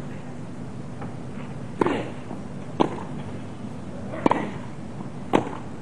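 Tennis balls struck by rackets in a baseline rally on a grass court: four hard strikes, about a second apart, as the players trade shots.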